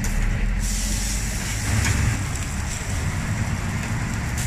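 Crumbled meat sizzling on a steel taco griddle as a metal spatula chops and scrapes through it, over a steady low rumble of road traffic.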